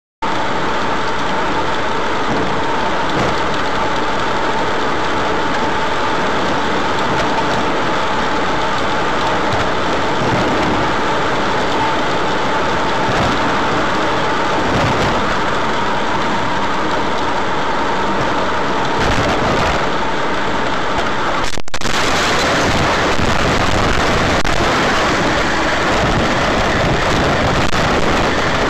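Steady road and wind noise of a moving car as picked up by a dash camera, with a brief dropout about 22 seconds in, after which the noise comes back a little louder.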